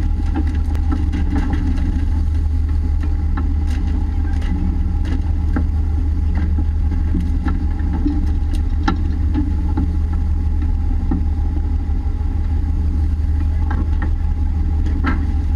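Fishing boat's engine running steadily with a deep hum, with scattered knocks and clicks from the work on deck as fish are hauled aboard.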